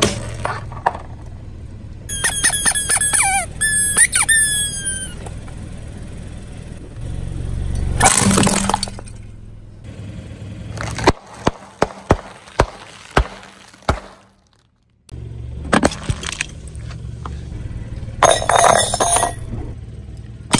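Objects crushed one after another under a car tyre: a run of high squeaks falling in pitch early on, a loud crunch, then a quick series of sharp pops as the tyre rolls over a row of sealed snack bags, and more crunching and breaking near the end.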